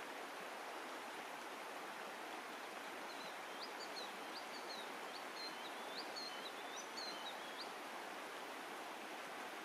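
Shallow stream flowing steadily over stones. In the middle a small bird sings a quick run of short, high chirping notes.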